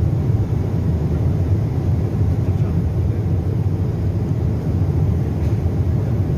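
Steady, low rumble of a jet airliner's cabin noise in flight, unchanging throughout.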